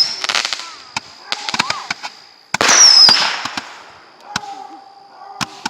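Fireworks going off: a loud burst with a short falling whistle about two and a half seconds in, with scattered sharp crackling pops and a thin high whistle hanging in the air.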